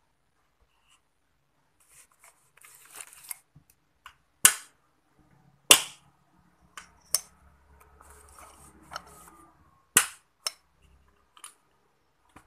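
Sharp metal knocks and clicks, about five spread through, with scraping between, as the blade-and-bushing assembly in the base of a blender jar is tightened with a tool.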